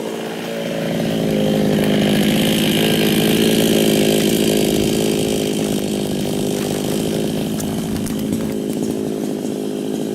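52cc two-stroke chainsaw running steadily. Its engine gets louder about a second in and eases back a little after about five seconds.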